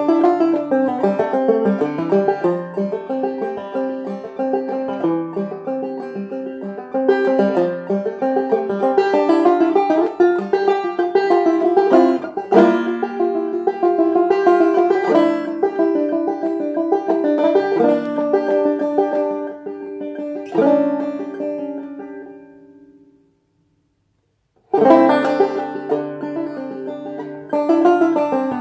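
Solo five-string banjo played clawhammer style: a steady run of bright plucked notes and drone-string strokes. About 22 seconds in the notes ring out and fade to a second or so of silence, then the playing starts again suddenly.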